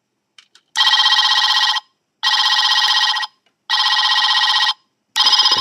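Electronic telephone ring from the sound chip of a knockoff oversize Megatron toy figure, set off through its head: three trilling rings of about a second each with short gaps, and a fourth starting near the end.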